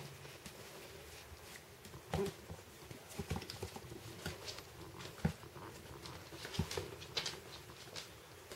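Two puppies play-fighting on a hard floor: an irregular patter of paws and clicking claws, with a few louder knocks as they tumble against the floor.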